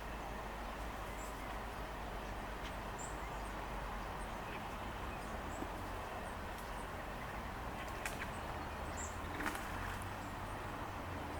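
Faint, scattered short chirps of small birds over steady outdoor background noise with a low rumble, and two brief clicks late on.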